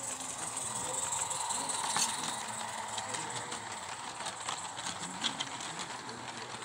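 Gauge 1 live-steam model locomotive and its goods wagons rolling past: a steady hiss of steam with many light clicks of the wheels on the track, a couple of them louder.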